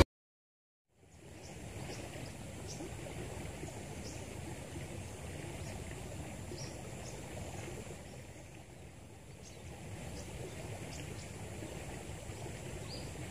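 Steady hush of a flowing river, starting about a second in, with scattered faint high chirps from birds or insects.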